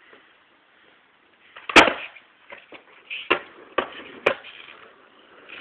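Skateboard landing hard on concrete about two seconds in, the acid drop off a ledge, then its wheels rolling over the concrete with three sharper clacks of the board.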